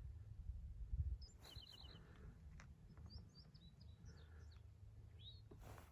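A songbird singing faintly: a quick run of about five high notes, then a scatter of short slurred chirps. A steady low rumble lies underneath, with a low thump about a second in.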